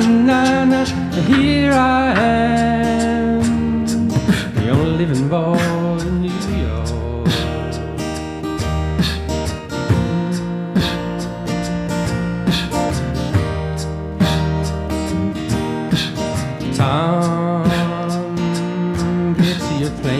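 Acoustic guitar strummed steadily in a folk-song accompaniment, with a voice singing wordless lines now and then.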